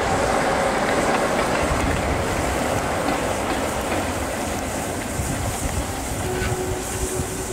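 British Rail Class 47 diesel locomotive running past and moving away, its Sulzer twelve-cylinder diesel engine rumbling and slowly easing off as it recedes.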